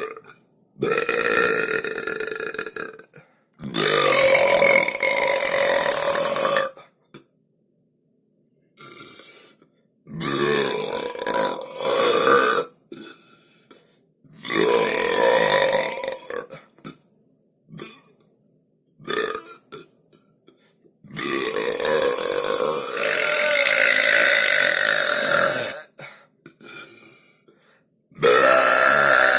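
Human burps in a row: about six long, loud belches of two to four seconds each, their pitch wavering and sliding, with a few short burps in the gaps between them.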